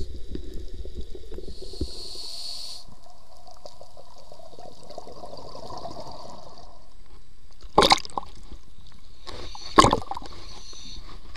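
Water noise picked up through an underwater camera: crackly bubbling at first, then a steady wash. Near the end come two loud, sharp water slaps against the camera, about two seconds apart.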